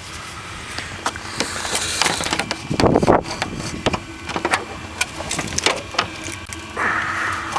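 Crunching and crackling of frozen snow with many sharp clicks and knocks as a snow-covered vehicle bonnet is handled and lifted open, the loudest crunch about three seconds in.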